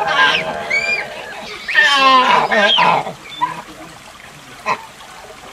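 Proboscis monkey calls: a short call at the start, then a louder, longer wavering call about two seconds in, followed by a quieter stretch.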